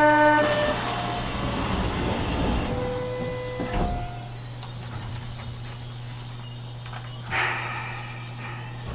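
Osaka Metro 200 series New Tram car at departure, heard from on board: a door chime cuts off right at the start, then the doors slide and clunk shut about four seconds in, over a steady electric hum as the car readies to move off.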